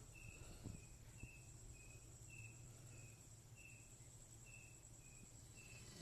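Faint cricket chirping: short, evenly repeated chirps about twice a second over quiet room tone with a low steady hum.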